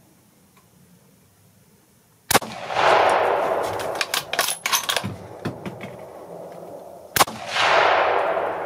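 Two .243 rifle shots from a Savage hunting rifle, about five seconds apart, each a sharp crack followed by a loud noise that fades over a few seconds, with a few short clicks between the shots. The first shot drops a hog and the second is fired at a fleeing one.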